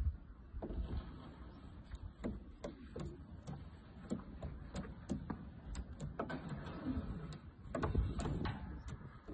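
Pigeons cooing softly, with scattered clicks and knocks and a couple of low thumps.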